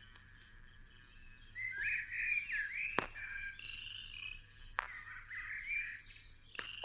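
Chirping wildlife: a short high chirp repeating at a steady rhythm, several times a second, over swooping, warbling chirps, with two sharp clicks in the middle.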